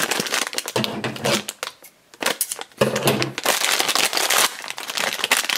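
A plastic blind-bag packet crinkling and crackling as it is squeezed and opened by hand, with a short pause about two seconds in.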